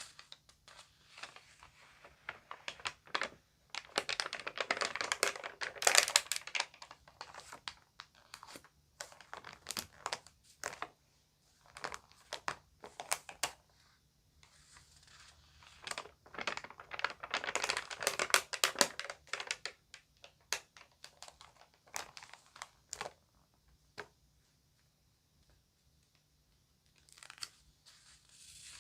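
Crinkly magazine pages being handled and turned, giving sharp paper crackles. Two longer spells of dense crinkling, about four seconds in and about sixteen seconds in, with scattered single crackles between and a short lull near the end.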